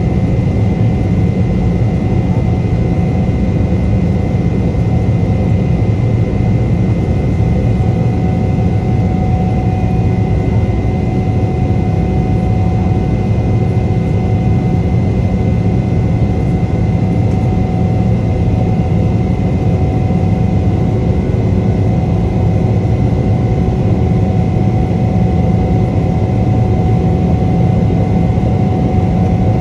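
Cabin noise of a Boeing 777-300ER climbing out after takeoff, heard from a window seat beside its GE90-115B turbofan: a loud, steady low rumble with a steady high whine over it.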